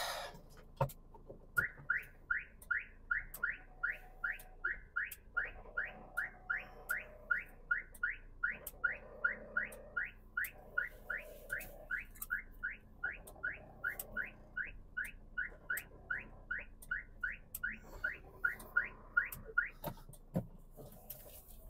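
Electronic car warning chirper sounding a short rising chirp about two and a half times a second, over and over, the kind a car's reversing alarm makes while it backs out. Faint clicks run underneath.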